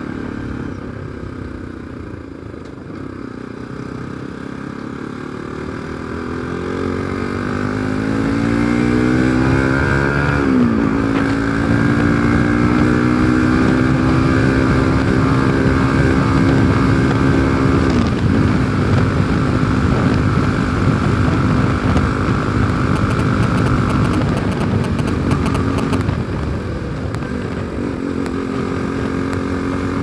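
Bajaj Pulsar NS200 motorcycle engine under way. Its revs climb for several seconds, drop sharply at a gear change about ten seconds in, and drop again at another shift a little past halfway. After that it runs at fairly steady revs.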